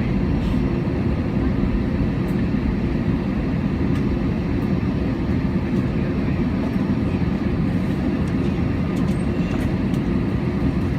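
Steady low rumble inside the cabin of an Airbus A320-216 on the ground after landing, its CFM56 engines at idle, with a few faint clicks.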